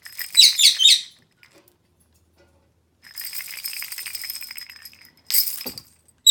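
A parrot toy being shaken, giving short bursts of bright jingling rattle: one near the start, a longer, softer rattling stretch from about three seconds in, and another burst right at the end.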